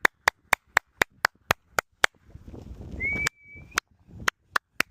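A person gives one short, steady whistle about three seconds in, calling for a dog that has run off. Under it runs a regular series of sharp clicks, about four a second.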